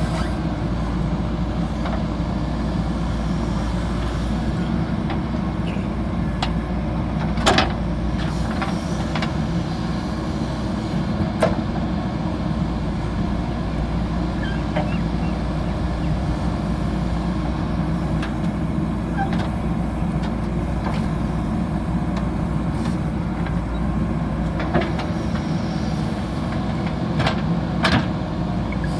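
Backhoe loader's diesel engine running steadily under work, with a few sharp knocks scattered through.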